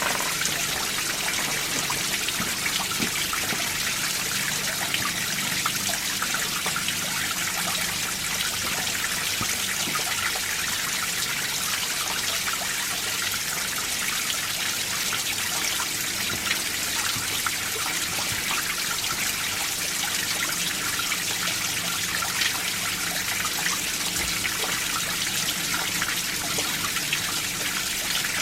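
A winter mountain stream running over rocks: steady trickling and splashing water, with icy flow under snow and ice.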